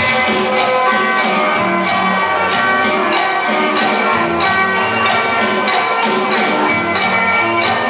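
Music playing: a melody of held notes at a steady level.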